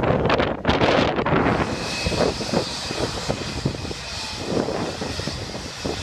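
Wind buffeting the microphone at first, then, about two seconds in, the steady whine and rush of a JetBlue Airbus A320-family airliner's jet engines as it rolls slowly past, with a high, even whistle.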